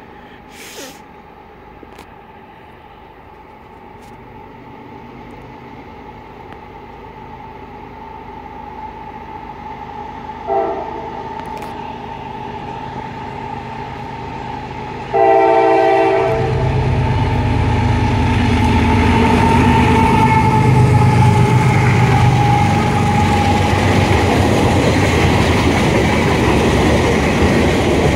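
CSX 3000 approaches and sounds its first-generation Nathan K5LA five-chime air horn twice: a short blast about ten seconds in, then a slightly longer one a few seconds later. The locomotive and its covered hopper cars then pass close by with a loud, steady rumble of wheels on rail.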